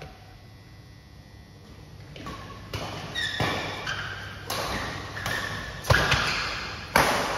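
Doubles badminton rally: a quick series of sharp racket hits on the shuttlecock starting about two seconds in, echoing in the large hall.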